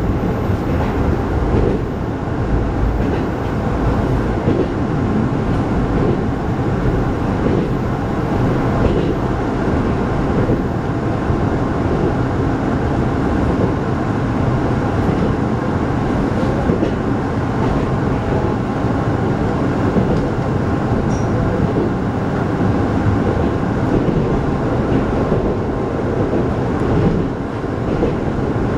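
Local commuter train running on the rails, heard from inside the carriage: a steady rumble of wheels on track.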